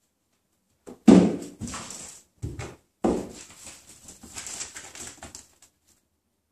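Cats' paws thumping and scrabbling on a wooden floor as they chase a laser dot. There is a loud thump about a second in and another about three seconds in, each followed by scattered patter and scrabbling that dies away near the end.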